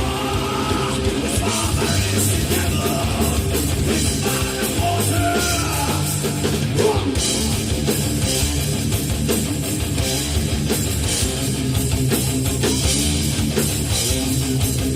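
Heavy metal band playing live: distorted electric guitars, bass and a pounding drum kit at full volume, with no vocals.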